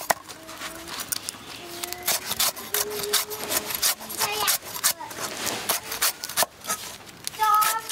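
Cleaver chopping spring onions on a thick wooden chopping block: a quick, irregular run of blade strikes on the wood. A short pitched, voice-like call comes near the end.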